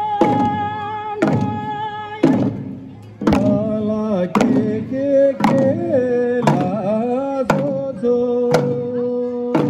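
Tibetan lingdo dance music: hand-held drums struck with curved sticks beating about once a second, under a sung melody with long held notes that slide between pitches.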